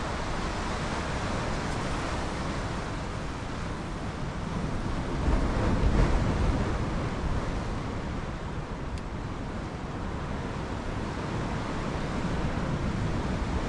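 Sea surf washing against the rocks, mixed with wind on the microphone: a steady rushing noise that swells louder for a couple of seconds about five seconds in.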